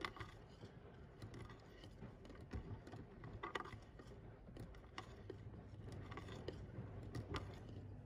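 AEG/Electrolux washing machine running a carpet wash: a steady low motor hum with scattered light clicks and rattles.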